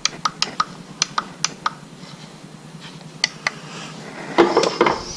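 Irregular sharp clicks and taps from hands handling and positioning a small plastic work light, most of them in the first second and a half and two more about three seconds in. About four and a half seconds in comes a louder rustle of a jacket rubbing on a chest-worn microphone.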